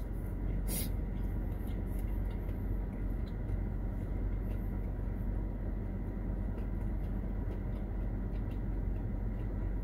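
Steady low hum inside a car's cabin with the engine running, and a brief crunch of a bite into fried chicken about a second in, followed by quiet chewing.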